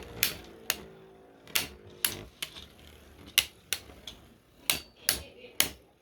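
Two spinning 3D-printed Beyblade tops clashing in a stadium: a string of sharp, irregularly spaced plastic clacks, about a dozen in all, with a faint spinning hum under the first second.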